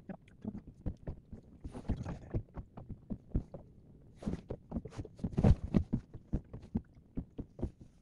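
Small waves slapping and knocking against the hull of a drifting motorboat, in irregular low thumps with a few brief splashes.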